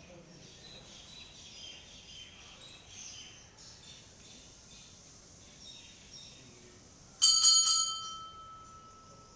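Birds chirping faintly, then about seven seconds in a metal bell rings sharply for under a second, its tone ringing on and dying away over a couple of seconds.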